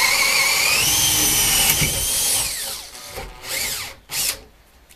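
Cordless Makita drill boring into a wooden 2x4 with an auger bit. The motor whine is steady, rises a little in pitch about a second in, then winds down at about two and a half seconds. Two short spurts follow.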